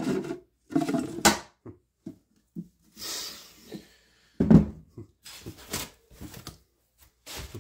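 Clicks and knocks from handling a clear acrylic enclosure's slide-on magnetic lid, a brief rustle of packaging, and one louder knock about four and a half seconds in, followed by a few small clicks.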